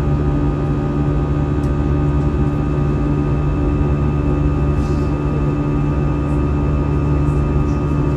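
Airliner jet engines heard from inside the passenger cabin: a loud, steady drone with a low hum and several steady tones above it, unchanging in level.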